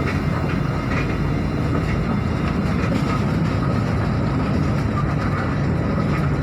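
Mercedes-Benz OH 1526 bus under way, with steady engine and road rumble.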